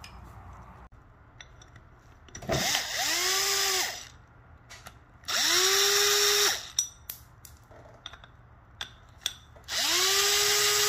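Impact wrench run in three short bursts of about a second each, spinning up and hammering, to loosen the shock mount fasteners on an air strut.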